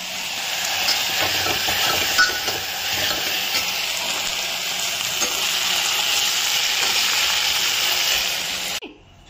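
Food sizzling as it fries in a hot pan, stirred with a spatula that clicks against the pan now and then. The sizzle cuts off suddenly near the end.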